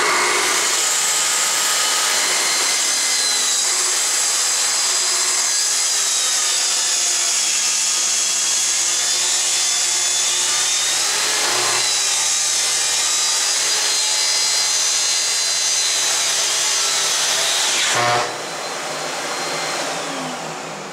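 Festool TS55 REQ track saw cutting plywood along its guide rail, a steady high whine for about 18 seconds. The sound drops sharply near the end, leaving a fainter sound that fades out.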